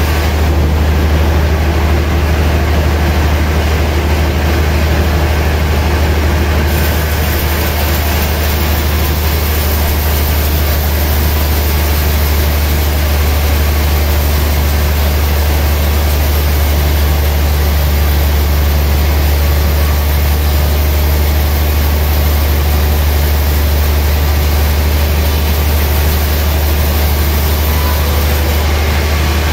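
Large log band saw running with a steady low hum as its blade cuts through a gayam log.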